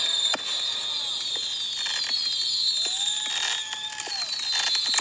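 Consumer fireworks going off: a steady hiss and crackle of spark fountains, with several sharp bangs, most of them near the end. Around the middle a tone rises, holds, then falls away.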